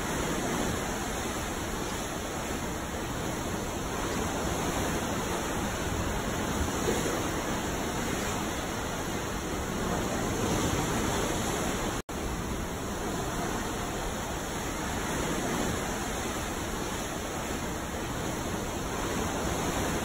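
Ocean waves: a steady rushing wash of seawater that swells slightly every few seconds. The sound drops out for an instant about twelve seconds in.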